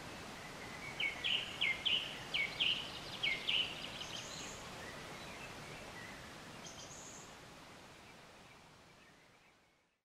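Forest ambience with a songbird singing: a quick run of about eight sharp, loud notes between about one and four seconds in, then a couple of faint high calls, over a steady hiss. The ambience fades out near the end.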